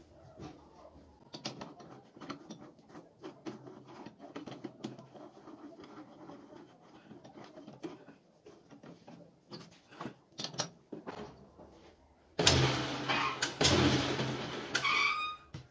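Metal clicks and scrapes as a round steel bar is fitted and tightened by hand in a three-jaw lathe chuck. About twelve seconds in, the homemade lathe's motor starts suddenly with a loud hum and the chuck spins for about three seconds, then stops.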